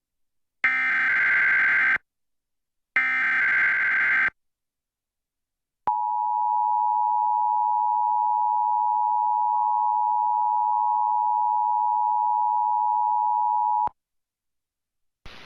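Emergency Alert System test: two SAME header data bursts, a harsh digital screech about a second and a half long each with a short gap between, then after a pause the EAS two-tone attention signal (853 and 960 Hz together) held steady for about eight seconds and cutting off sharply.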